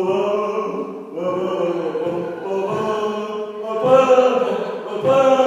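A person's voice intoning long, held chant-like notes, in several phrases about a second or so each.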